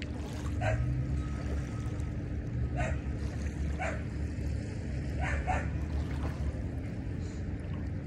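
Small lake waves lapping onto a sandy beach over a steady low rumble. A dog barks five times: once near the start, around three and four seconds in, and twice in quick succession past five seconds.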